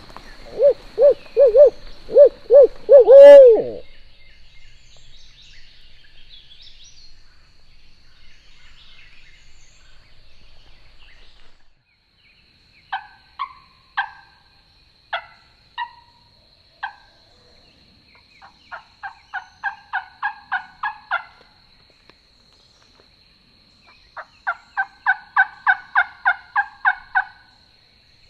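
A loud run of barred-owl-style hoots, about seven notes ending in a long falling note, like 'who cooks for you-all'. After a pause come a few single turkey clucks, then two quick runs of turkey yelps, each about a dozen notes.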